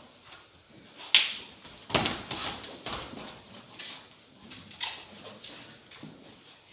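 Grappling bout on foam mats: scattered short calls and sharp slaps as the two grapplers hand-fight. The loudest come about one and two seconds in, with smaller ones following every second or so.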